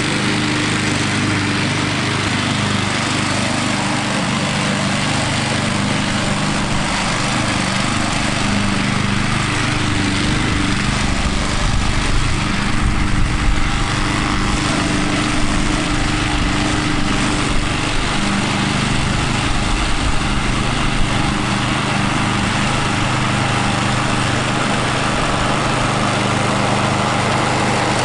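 Walk-behind gas lawn mower's small engine running steadily at a constant pitch while cutting grass.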